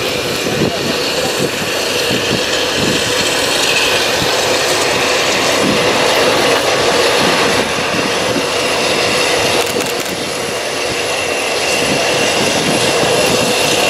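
F-16 jet engine idling on the ramp: a loud, steady rush with a steady high turbine whine over it.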